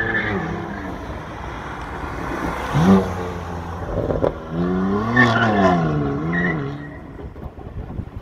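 A high-performance car engine revving hard under acceleration: its pitch shoots up about three seconds in, then climbs and falls again over a couple of seconds, as through a gear change or a pass-by.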